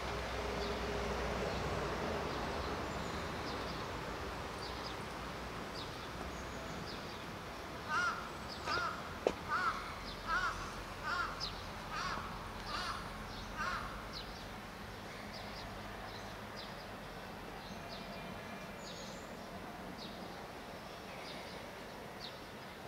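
A run of about eight short calls from an unseen animal, evenly spaced a little under a second apart, starting about eight seconds in and lasting some six seconds, with one sharp click among them. A steady background hum and scattered faint high chirps run throughout.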